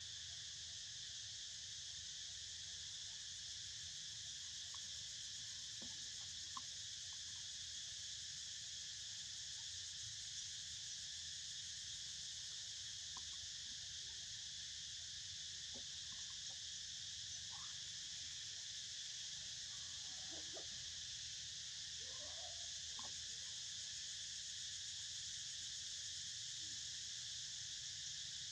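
A steady, high-pitched chorus of insects buzzing without a break, with a few faint short clicks and calls scattered through it.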